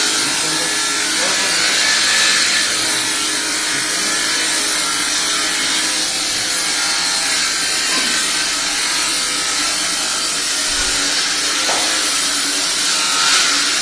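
Power tool cutting or shaping wood, running steadily with a continuous high hiss.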